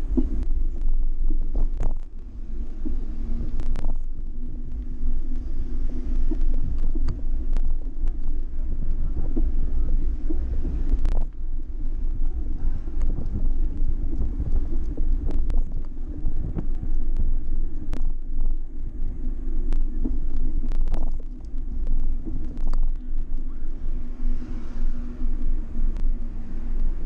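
Wind buffeting and road rumble on a handlebar-mounted action camera while cycling, a heavy steady low rumble broken by scattered sharp clicks and knocks.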